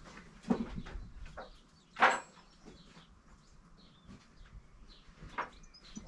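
A few sharp clinks and knocks of hand tools being rummaged through while searching for a spanner, the loudest about two seconds in with a brief metallic ring.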